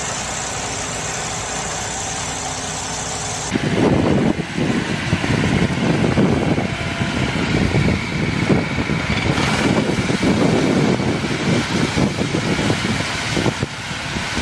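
A vehicle engine running steadily, then about three and a half seconds in it cuts to a louder, rough, uneven rumble of a crawler tractor working a flooded field with a rotary tiller.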